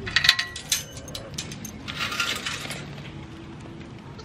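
Light metallic clinking and jingling in quick, irregular clicks. It is loudest in the first second, with a second flurry about two seconds in.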